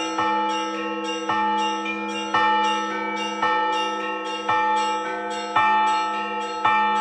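Russian Orthodox church bells being rung: a louder strike comes about once a second, with quicker strokes of smaller bells between, over the steady ringing hum of the larger bells.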